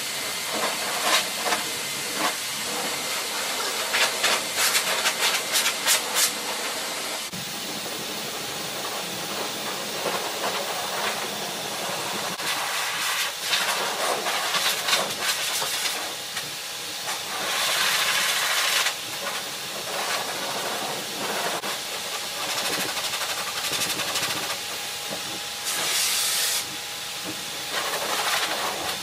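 High-velocity canister pet dryer blowing a steady rush of air through a standard poodle's coat. Quick scratchy slicker-brush strokes come in the first six seconds or so, and the air grows louder for about a second twice in the second half.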